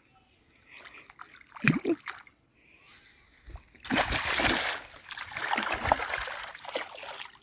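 Hooked fish thrashing at the water's surface: a couple of sharp splashes about two seconds in, then a long stretch of heavy splashing from about four seconds in until near the end.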